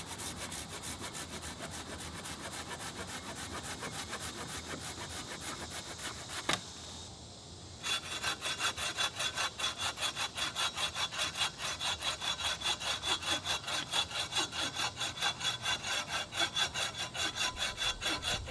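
A folding pruning saw cuts through a lichen-covered branch with quick, even push-pull strokes. After a short pause about seven seconds in, a collapsible H-type buck saw takes over, sawing a log with louder, regular strokes.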